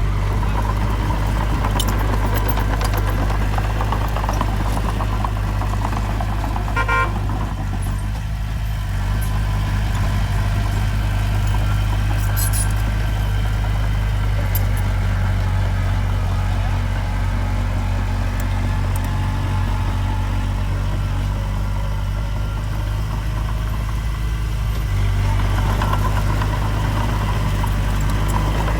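Diesel engine of heavy earthmoving machinery running steadily with a deep drone, and a brief tone about seven seconds in.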